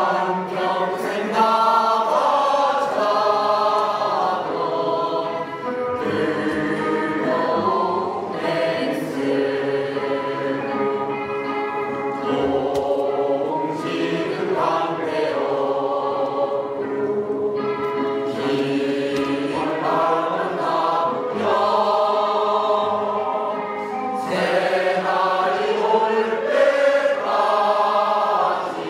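A choir singing, in long phrases of held notes with short breaks between them.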